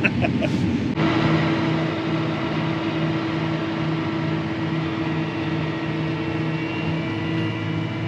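Steady farm-machinery drone heard inside a tractor cab, beginning about a second in: an evenly pulsing low hum under a steady higher tone and a wash of hiss, as a combine runs alongside unloading corn into the grain cart.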